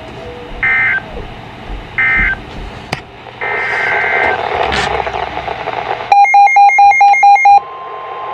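Emergency Alert System data bursts over weather-radio static: two short, shrill two-pitch chirps about a second and a half apart, then a longer one about three and a half seconds in. From about six seconds a rapid run of electronic alert beeps goes at about five a second for a second and a half, and a steady warning tone begins just before the end.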